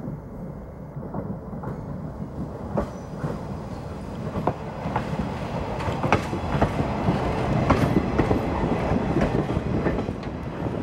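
A passenger train's caboose and coaches rolling past: steel wheels clicking over the rail joints in an uneven clatter over a steady rumble, growing louder as the cars come alongside.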